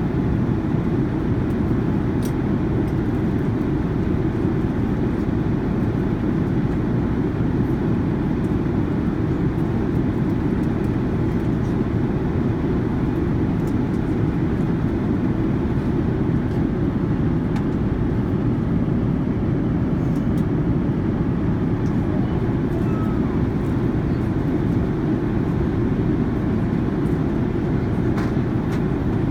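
Steady low roar of a Boeing 787-9 Dreamliner's cabin noise, airflow and engine drone heard from a passenger seat, unchanging throughout, with a few faint ticks.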